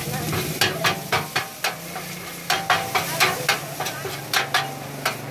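Metal spatula scraping and clacking against a wide steel frying pan as rice pin noodles are stir-fried and scooped up, over the sizzle of frying. About fifteen quick, sharp scrapes, with a short lull before the middle.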